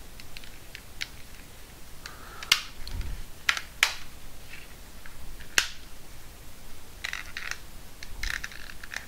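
Plastic case of a Samsung TV remote being pressed shut, its top cover's clips snapping into place with sharp clicks: a few single clicks, then quick runs of clicks near the end.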